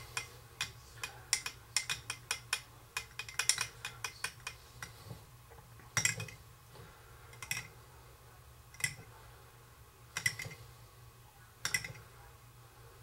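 A stirring utensil clinking and tapping against the inside of a glass cup while mixing glitter into hot, liquid soft-bait plastic. Quick clicks come several times a second for the first few seconds, then single knocks about every second and a half.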